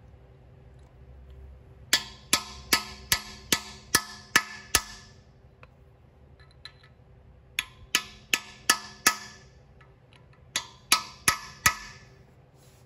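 Hammer blows on a steel driver, seating press-fit oil galley plugs into the front of a 351 Windsor cast-iron engine block. The sharp, ringing taps come in three runs of about three a second: eight, then five, then four.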